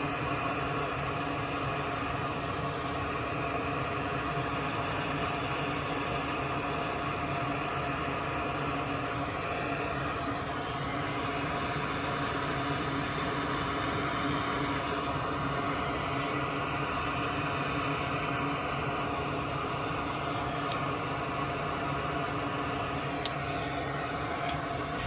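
Steady whirring hum of a small motor or fan, holding several steady tones, with a few faint clicks near the end.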